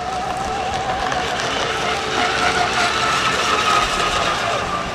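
Fast electric radio-control racing boat running flat out, its motor whining over the hiss of its spray; the whine climbs in pitch and grows louder around the middle as the boat passes close.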